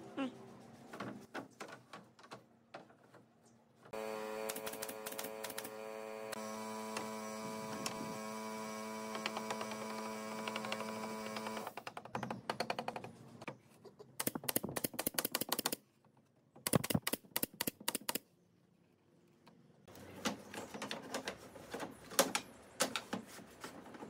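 Pneumatic nail gun and hand work on pallet-wood boards: bursts of rapid sharp clicks and knocks. A steady machine hum runs for about eight seconds in the first half.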